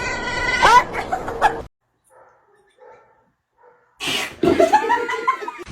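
Pet animal calls: a run of short pitched calls, a gap of about two seconds, then a sudden noisy burst and more calls rising and falling in pitch.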